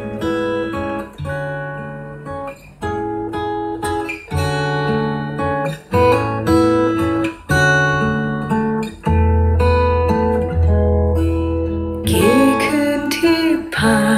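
A song playing through a Marshall Stanmore Bluetooth speaker: acoustic guitar picked note by note, with a singing voice coming in about two seconds before the end.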